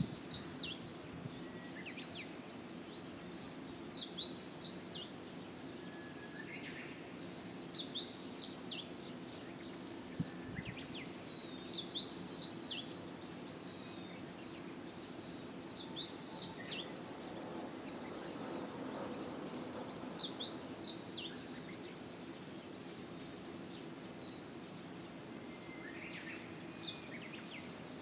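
A songbird singing the same short phrase of quick, high, hooked notes about every four seconds, over a steady low background hum.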